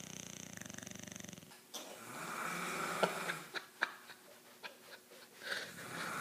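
Snoring: a long fluttering snore at the start and another from about two seconds in, followed by a few short sharp clicks and a softer breath near the end.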